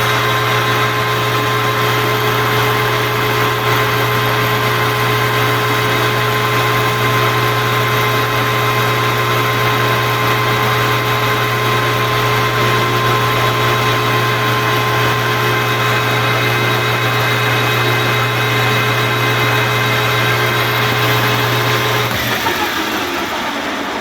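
Metal-turning lathe running steadily with a steady motor hum and whine while taking a facing cut on a Delrin bar. About two seconds before the end it is switched off, and its pitch falls as it spins down.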